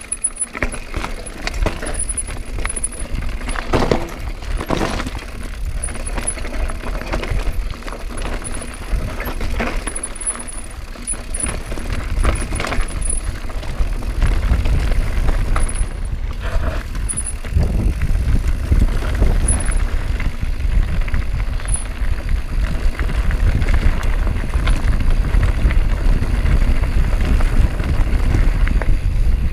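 Mountain bike rattling as its tyres roll over a rough dirt trail, with many small clicks and knocks. A low rumble grows louder about halfway through.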